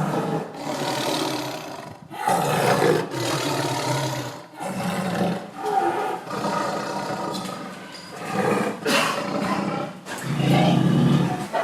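Tiger roaring and growling, a run of about six rough roars of a second or two each, one after another with short breaks.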